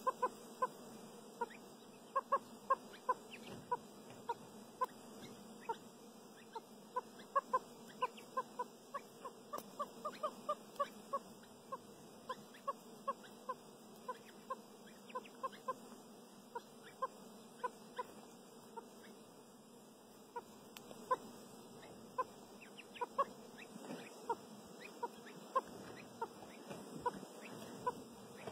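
Chukar partridge hen with her chicks calling in a long series of short, same-pitched notes, about two a second. The notes come closer together for a few seconds about a third of the way in, then thin out.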